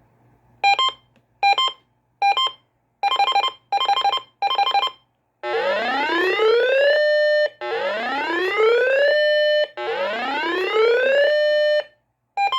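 RadioShack PRO-136 scanner running its built-in siren test, set off by holding the priority button: three short beeps, three slightly longer beeps, then three rising siren wails from its speaker, each climbing for about a second and a half, holding its top note briefly and cutting off. Another beep starts right at the end.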